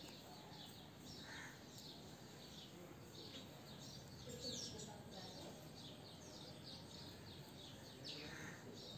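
Faint small birds chirping in quick, repeated falling chirps over quiet background noise.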